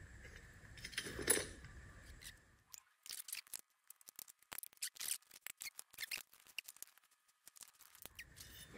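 Faint small clicks and scrapes of a hand tool picking at a large O-ring inside a reciprocating saw's housing. There is one louder click a little over a second in, then a run of quick, irregular ticks.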